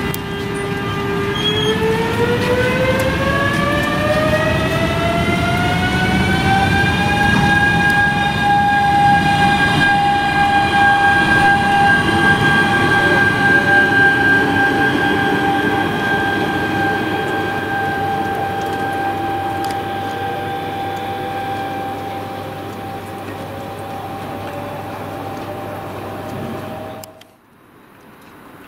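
NSB BM73 electric multiple unit pulling away: its traction drive gives a whine that rises steadily in pitch as the train accelerates, then holds a steady note while it rolls on, over the rumble of the train. The sound fades slowly and cuts off suddenly near the end.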